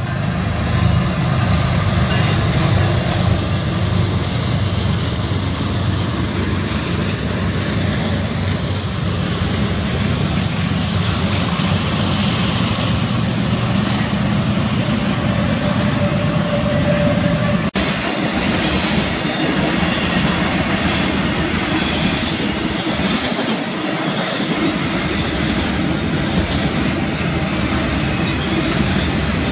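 Freight train passing close by: the trailing GE diesel locomotives go by at the start, then double-stack intermodal container cars roll past with a steady rumble of wheels on rail.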